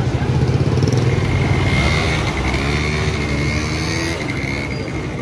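An engine running steadily with a fast, even low pulse, easing off slightly after the first second, with faint voices behind it.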